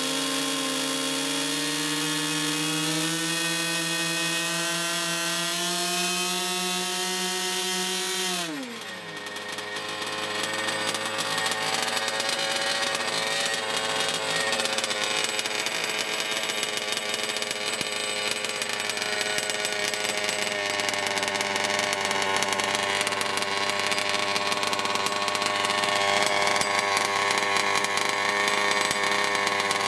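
CMB two-stroke model engine running at high revs on a test bench, its pitch creeping slowly upward. About eight and a half seconds in it is throttled back: the pitch falls sharply and it settles into steady low-speed running.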